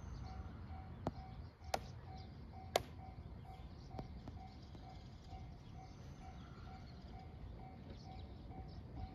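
Faint level-crossing warning bell ringing, a repeating electronic ding about twice a second, the signal that a train is approaching. A few sharp clicks cut in about one, two and three seconds in, the last the loudest.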